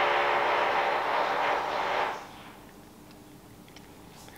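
A machine running with a steady whir and a hum of several tones, which dies away about two seconds in.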